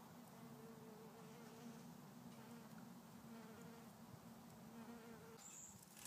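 Bumblebees buzzing in their nest: a faint, steady low hum, with a higher buzz that comes and goes.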